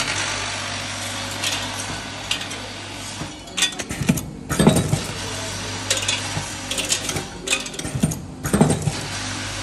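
Automatic packing machine for plastic parts running: a steady hum from its vibratory feeder, with plastic parts clattering and rattling and several sharp clacks about halfway through and again near the end.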